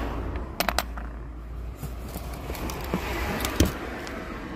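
Small metal coins clicking as a hand sets them down and slides them on a rubber boot mat: a quick run of clinks about half a second in and a few more near the end, one with a soft thud, over a steady low rumble.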